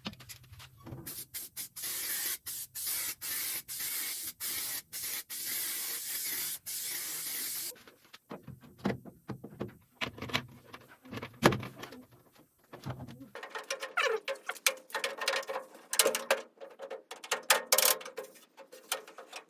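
Metalwork on a steel boiler: a steady hissing crackle broken by brief gaps for about seven seconds, then a run of sharp metal knocks and scraping taps, some of them ringing briefly.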